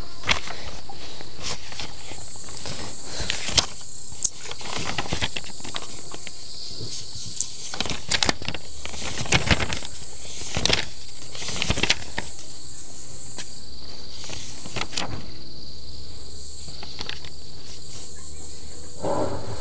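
Steady, high-pitched chorus of insects chirring, with scattered clicks and knocks of objects being handled.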